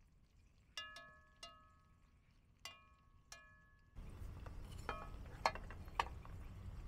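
Four light ringing clinks, in two pairs, each note dying away quickly, like a metal utensil tapping cookware. About four seconds in, a louder low rumble of background noise starts, with a few sharp clicks.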